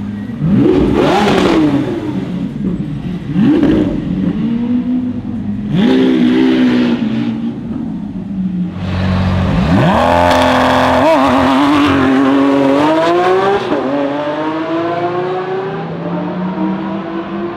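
Lamborghini Aventador's naturally aspirated V12 revved in three short blips, then a long hard acceleration whose pitch climbs, steps once partway through and climbs again. The sound then eases off and fades as the car pulls away.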